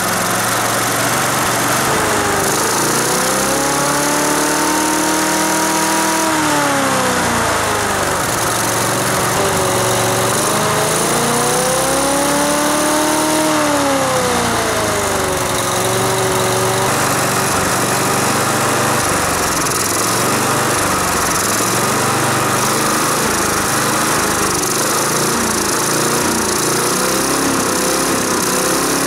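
Briggs & Stratton lawn mower engine running with its mechanical governor overridden by hand at the throttle linkage. It revs up and falls back twice in the first half, each rise taking a few seconds, then runs at a steady speed.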